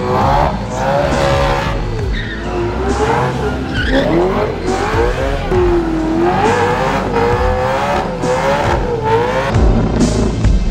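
Drift car on track, its engine revving up and down over and over through a slide, with tyre squeal.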